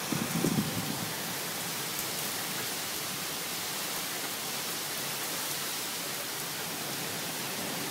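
Heavy rain pouring down steadily during a thunderstorm, with a brief low rumble in the first second.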